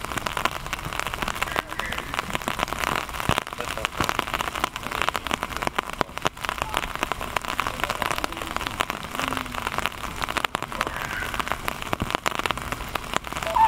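Steady rain pattering, a dense irregular crackle of drops.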